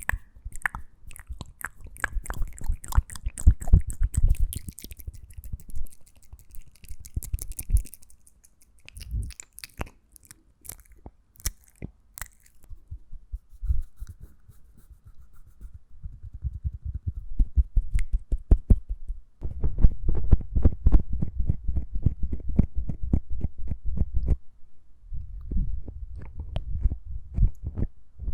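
Wet mouth sounds: rapid lip smacks and tongue clicks in dense runs, thinning to scattered clicks for a stretch in the middle before picking up again.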